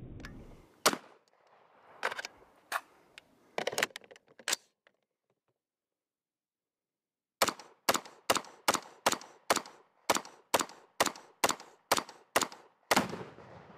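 AR-15 carbine firing semi-automatic: about six scattered shots, then after a break a steady string of about a dozen shots at roughly two a second.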